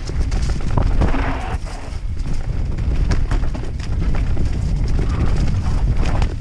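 YT Capra enduro mountain bike descending a rocky dirt trail at speed: continuous irregular rattling and knocking from the bike and its tyres hitting rocks and roots, over a low wind rumble, with a short hiss about a second in.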